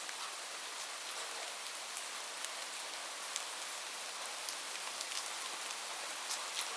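Light rain falling steadily, a soft even hiss with many separate drops ticking at irregular moments.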